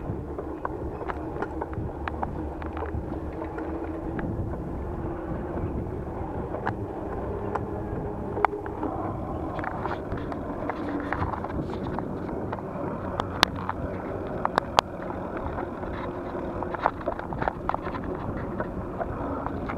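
Riding noise from a camera mounted on a bicycle on a paved path: a steady rumble of tyres and wind buffeting the microphone, with scattered sharp clicks and rattles from the bike and mount over bumps, the loudest ones about two thirds through.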